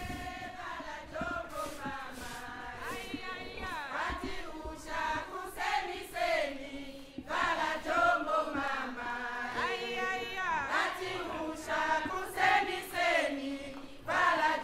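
Background music of voices singing in a chant, with held, wavering notes.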